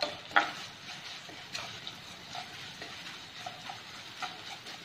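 A perforated steel skimmer stirring and scraping through garlic, chillies, curry leaves and ground spices frying in sesame oil in a kadai. A faint steady sizzle runs under scattered metal clicks and scrapes, with one louder knock about half a second in.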